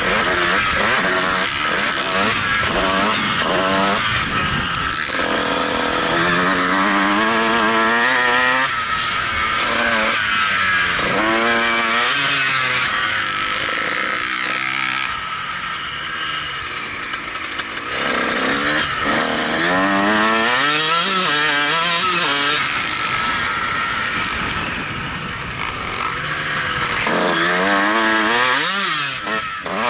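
Dirt bike engine ridden hard, its pitch climbing as it revs and dropping back again and again as it shifts and comes off the throttle, with a couple of short easings of the throttle along the way.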